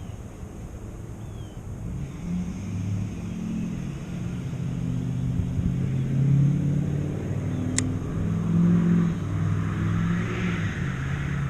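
A motor engine running, its low hum shifting up and down in pitch as the throttle changes, with a single sharp click about eight seconds in.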